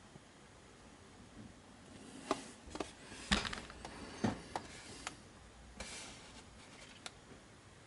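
Handling noise on a wooden workbench: a scattered run of light clicks and knocks, with a short rustle, as a small plastic remote and the gear are moved about.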